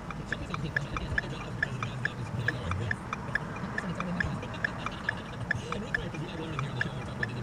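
A car's turn-signal indicator clicking at an even pace, about two to three ticks a second, over the low hum of the car.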